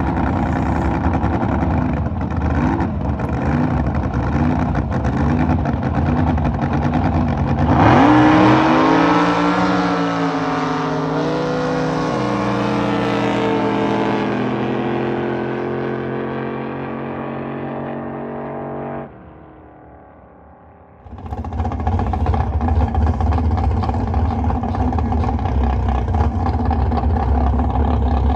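Drag boat engines idling and blipping at the start line, then about eight seconds in a boat launches at full throttle: a loud jump with the pitch climbing sharply, then holding as it runs down the course and fades. After a brief lull near twenty seconds, several boat engines idle again.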